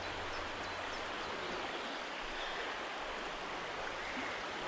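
Shallow river running over stones and riffles: a steady rush of water.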